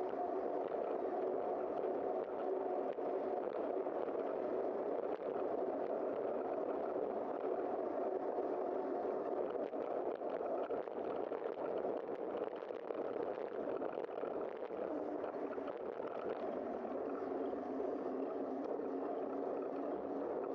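Steady, muffled rush of wind and road noise from riding a bicycle, with a low hum that drops slightly in pitch about fifteen seconds in.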